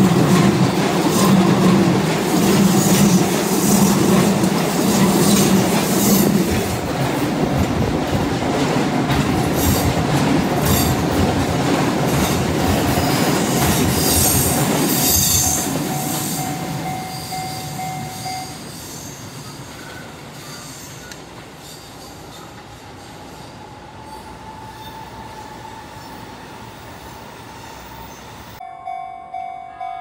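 A Shin-Keisei 8800 series electric train passes close by, with wheels clattering over rail joints and flanges squealing on the curve. The noise fades from about halfway as the train moves off. Near the end, a level-crossing warning bell starts ringing at about two strokes a second.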